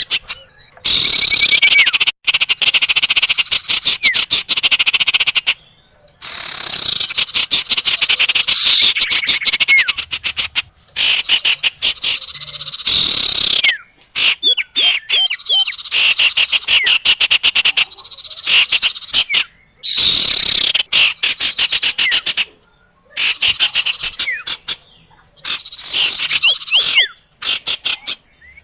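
Bird-trapping lure recording of small songbird calls, used to draw in sirtu and common iora. Rapid, harsh rattling trills and sharp chirps come in loud bursts of a few seconds, starting and stopping abruptly, with short gaps between them.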